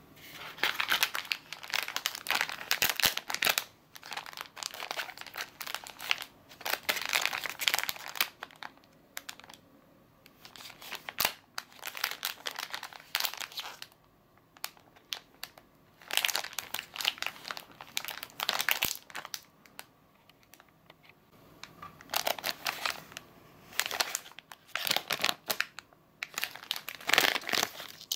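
Plastic packaging crinkling in the hands in repeated bursts with short pauses, as the packet is handled, turned over and opened.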